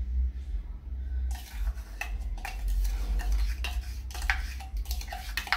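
Measuring cups and containers clicking and knocking as they are handled and tapped against a plastic bowl: a string of short taps starting about a second in, over a steady low hum.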